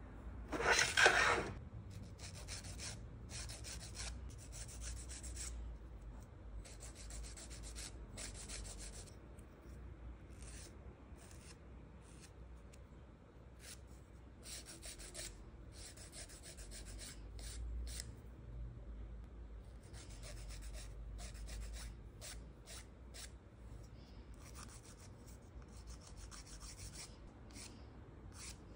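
Nail file rasping over fingernails in short, repeated strokes, with one louder, longer stroke about a second in.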